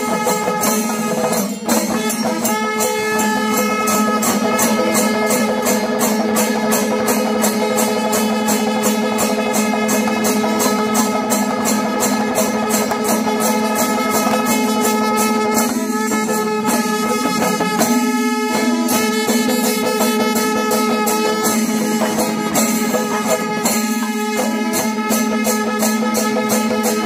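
Kerala temple-festival music: fast, evenly spaced metallic percussion strokes over a steady held drone tone, with brief breaks in the drone now and then.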